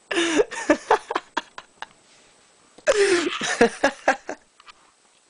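A man laughing in two bouts of about a second and a half each, with a short pause between them.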